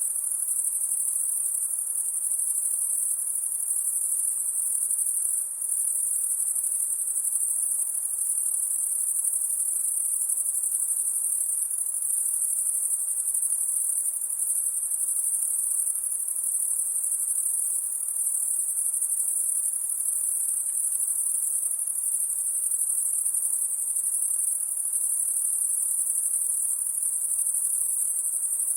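High-pitched insect chorus: a steady, unbroken shrill drone held high up in pitch, with no pauses or changes.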